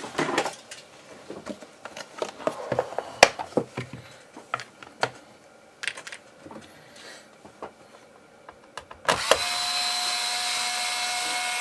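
Scattered light clicks and knocks of hard plastic being handled, then about nine seconds in a cordless electric screwdriver starts and runs steadily with a held whine, backing out a screw from a laptop's bottom cover.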